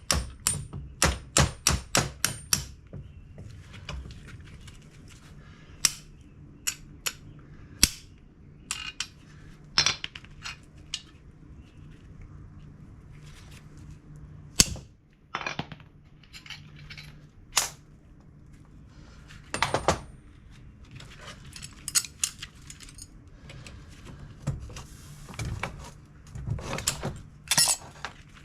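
Hammer blows on a punch driving a pin out of a 1970 Chevelle door hinge held in a vise: a quick run of sharp metal-on-metal strikes near the start, then scattered single strikes and small clusters with some clinking. The pin is stubborn and still resisting.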